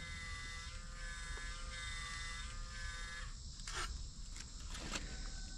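Rigaku handheld laser metal analyzer giving a steady electric buzz as it fires at a thick piece of scrap aluminum to read its alloy. The buzz stops about three seconds in, and two faint clicks follow.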